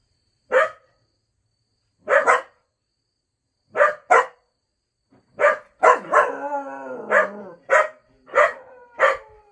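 Cocker spaniel barking: single and paired barks spaced well apart at first, then coming faster, about one every half second. A drawn-out wavering howl comes in between just after six seconds in.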